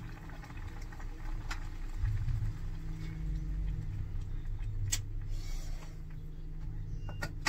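A steady low rumble, with a few light clinks of a ladle against a pot and a plate as food is served.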